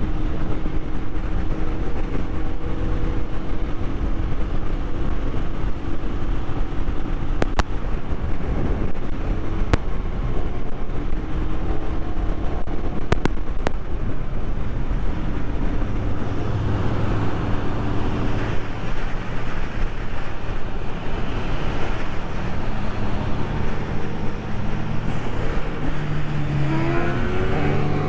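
Single-cylinder Royal Enfield Himalayan motorcycle engine running steadily at cruising speed, with road and wind rush. Near the end an engine revs up with a rising pitch.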